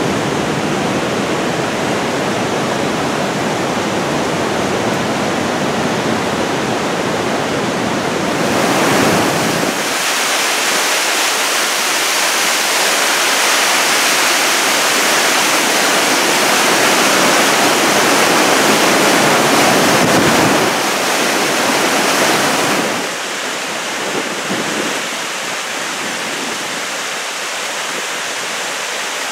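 Rushing white water of a waterfall and rocky mountain stream, a steady dense noise. The sound changes twice: at about nine seconds it loses its deep rumble and turns brighter and louder, and at about twenty-three seconds it drops to a softer, more even rush.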